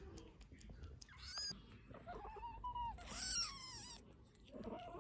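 Persian chinchilla kitten mewing: about four high-pitched mews, the longest near the middle.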